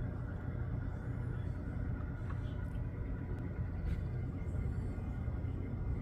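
Steady low outdoor rumble with no clear beat or change, with a few faint short high sounds above it.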